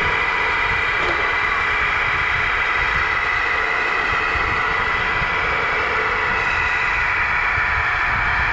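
Tamiya 1/14 scale RC semi truck running: a steady whine over a constant hiss, with an uneven low rumble underneath.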